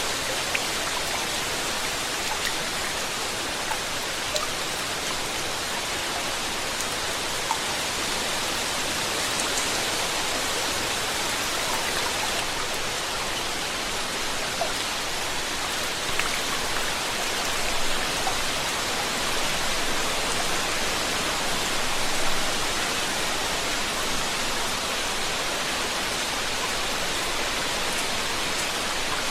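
Steady rain falling, an even hiss of rainfall with scattered individual drops ticking.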